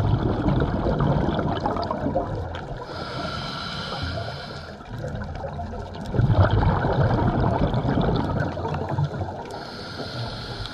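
Scuba diver breathing through a regulator underwater: a long bubbling exhale, then a hissing inhale, then another bubbling exhale, with a second inhale beginning near the end.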